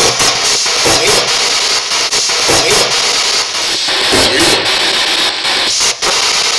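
Spirit box sweeping through radio stations: loud, choppy static broken by short gaps, with brief snatches of broadcast sound.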